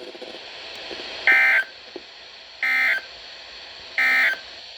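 Three short bursts of warbling EAS/SAME digital data tones, the end-of-message code sent at the close of a weather-radio alert, evenly spaced about a second and a half apart.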